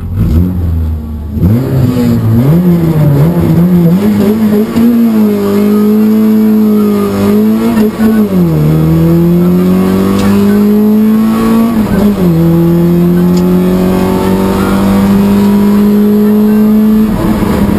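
Peugeot 106 XSi rally car's four-cylinder engine heard from inside the cabin, pulling away hard about a second and a half in. Its pitch climbs through the revs, dropping sharply at each upshift, about eight and twelve seconds in, then climbing again.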